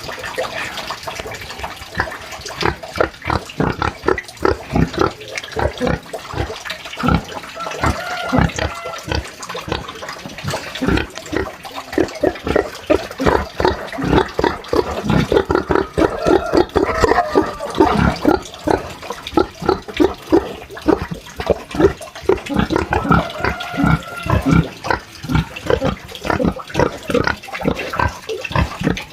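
Pigs grunting in quick, irregular succession, with a few longer, higher-pitched calls mixed in.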